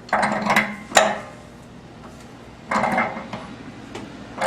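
Wrench tightening the threaded connection of a Honeywell AMX300 mixing valve, with metal scraping and clinking in two short bursts. A sharp clink comes about a second in.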